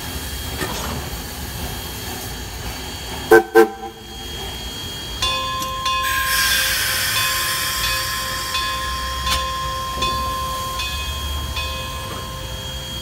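Durango & Silverton K-36 steam locomotive No. 482 sounding its chime whistle in two short toots about three and a half seconds in, the two-short signal to release brakes and go ahead. Afterwards steam hisses steadily over a steady whine from the engine.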